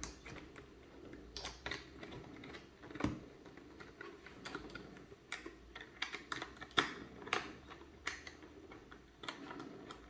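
Small, irregular clicks and taps of a screwdriver turning in the screws of an intercom clamp mount as it is tightened onto a motorcycle helmet's shell, coming thicker in the second half.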